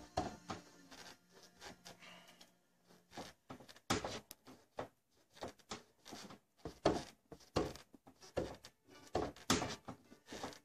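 Irregular light knocks and taps, about a dozen of them, coming in uneven clusters through the second half.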